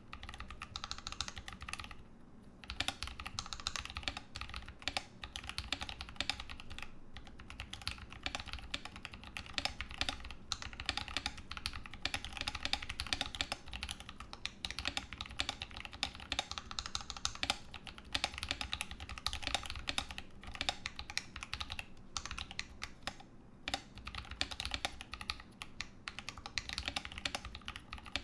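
Fast continuous typing on a Rama Works M60-A mechanical keyboard with original Holy Panda tactile switches, GMK keycaps and an aluminium plate, its case damped with an internal weight and Sorbothane. The keystrokes run in a dense stream of clacks, with brief pauses about two seconds in and near the end.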